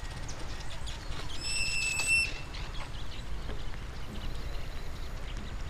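A bird's single long whistled note, clear and held at one pitch for about a second, about a second and a half in, over a low steady rumble, with a few faint short chirps around it.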